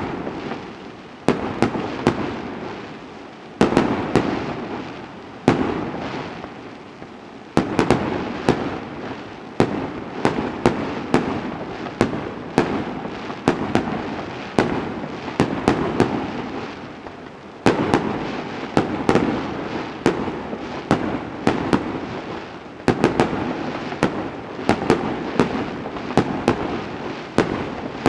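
Aerial fireworks shells bursting in rapid succession: many sharp bangs, often several close together, each trailing off in an echoing rumble.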